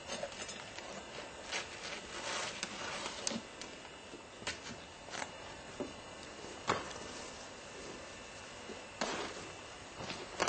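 Irregular sharp knocks and short scrapes, one every second or so with a few louder ones, from roofing shingles being pried and pulled off a roof, over a steady hiss.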